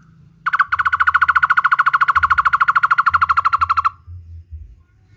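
Barbet (takur) calling: one short note, then a fast run of identical notes, about a dozen a second, lasting about three seconds before stopping.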